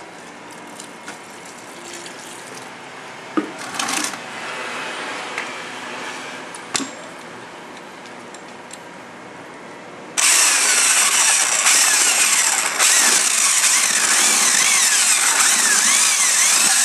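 A few light knocks and handling sounds, then about ten seconds in a power drill with a paddle mixer starts abruptly and runs loud, its pitch wavering as it churns thin-coat mortar and water in a plastic bucket.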